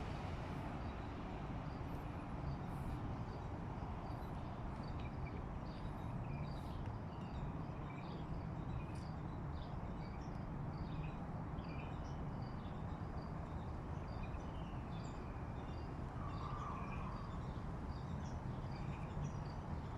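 Many small birds chirping in short, scattered calls over a steady low background rumble.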